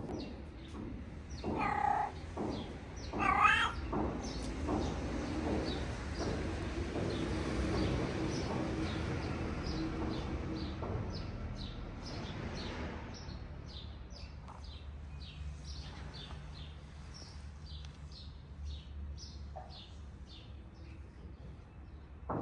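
Cat meowing twice, about two and three and a half seconds in, the second call louder and bending in pitch. A low steady rumble swells and fades through the middle.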